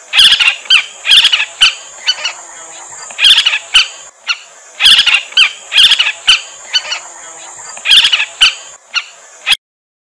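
Pratincole calling: short clusters of sharp, high chattering calls every second or two, over a steady high hiss. The sound cuts off suddenly near the end.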